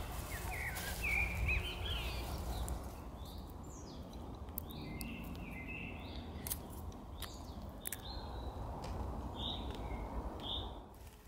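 Small songbirds chirping in short, repeated calls, over a steady low background rumble, with a few sharp clicks and rustles of cloth and dry leaves being handled.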